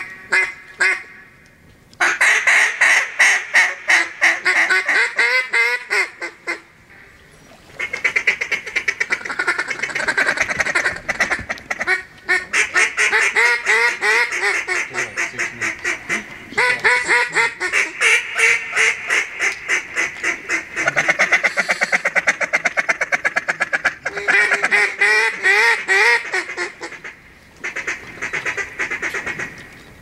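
Loud duck quacking in fast runs of about ten quacks a second, each run lasting a few seconds with short breaks between.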